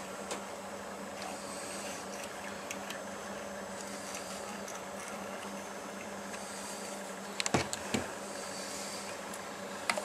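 Steady low background hum with faint clicks of handling, and a few sharp knocks close together about seven and a half seconds in, as small parts are handled around a plastic RC car chassis.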